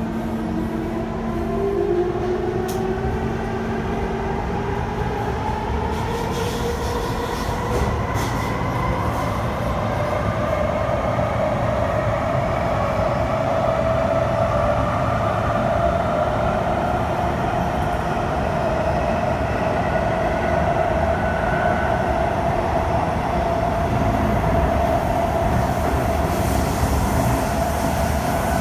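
Kawasaki C151 metro train heard from inside the carriage: the traction motors' whine climbs steadily in pitch as the train picks up speed, levelling off about halfway through, over a steady rumble of wheels on rail in the tunnel.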